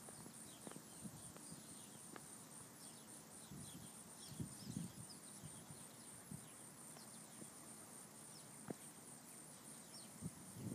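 Faint outdoor ambience: scattered short high chirps of small birds over a steady faint high insect drone, with a few soft low bumps.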